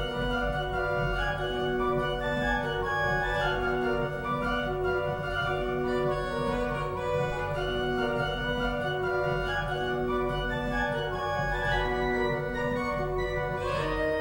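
57-rank Noack pipe organ (Op. 144) playing a busy, evenly repeating pattern of short notes in the middle range over a steadily held bass.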